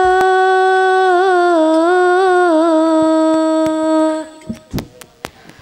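A female voice sings one long held note of a sholawat with ornamented turns in the middle, in Arabic devotional style, and breaks off about four seconds in. A few sharp taps follow near the end.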